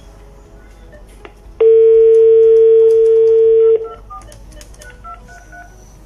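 NEC SL2001 multiline desk phone on its speaker: a loud steady dial tone for about two seconds, cut off as a number is keyed in, followed by a quick run of short keypad tones.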